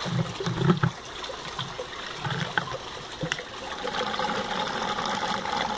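Water trickling steadily in a gravel flood-and-drain aquaponics grow bed at its bell siphon, with a few soft low bumps in the first three seconds.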